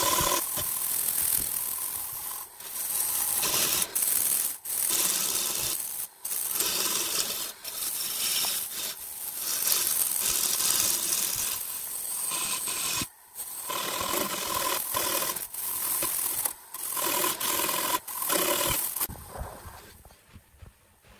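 Wood lathe turning a segmented wooden vessel while a turning tool cuts it: a continuous rasping hiss of wood being shaved off, broken by brief gaps, with a faint steady whine underneath. Near the end the cutting stops and the sound falls away.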